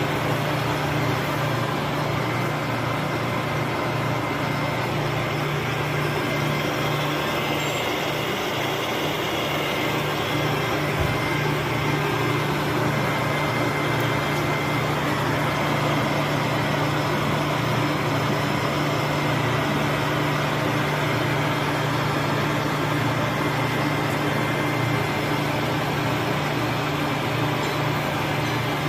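Famot TUM-35 lathe running idle with nothing being cut: a steady, unchanging mechanical hum.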